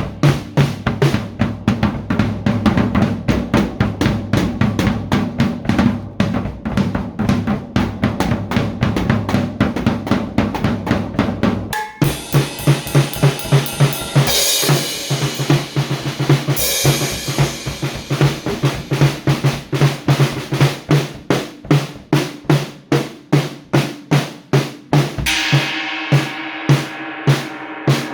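A drum kit played in a fast, steady beat. The pattern changes abruptly about halfway through, with cymbal crashes shortly after and again near the end.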